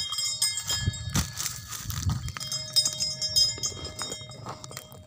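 A bull-drawn wooden cart stuck in place: irregular knocks, clatter and hoof sounds as the animal strains, with thin steady high tones behind.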